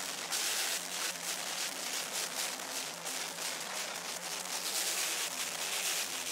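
Clear-shell drum kit played hard in a fast solo: a dense, loud wash of cymbals over rapid drum hits, noisy and echoing around a large hall.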